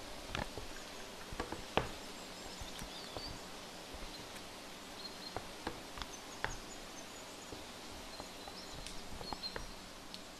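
Quiet room tone with faint bird chirps coming in from outside and a few scattered small clicks and taps.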